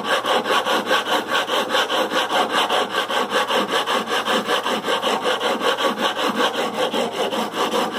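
Sanding block rubbed rapidly back and forth along the metal frets of a Fender Stratocaster neck, an even rasping stroke about four or five times a second. This is fret levelling, taking down high frets and flattening the radius toward the body end so the neck stops buzzing and fretting out.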